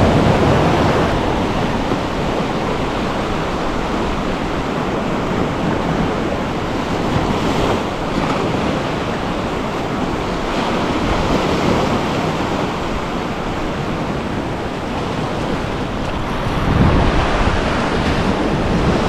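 Sea surf washing onto a rocky shore, a steady rushing noise, with wind buffeting the microphone; a louder low rush comes near the end.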